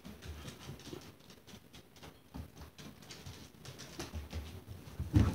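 A dog's paws pattering and scuffling on the floor as it chases a laser-pointer dot, in faint, irregular taps and clicks. A louder thump comes near the end.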